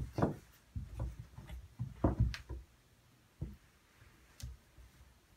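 Two cats play-fighting in an empty bathtub: irregular scuffles and bumps of paws and bodies against the tub, busiest about two seconds in, then two single knocks.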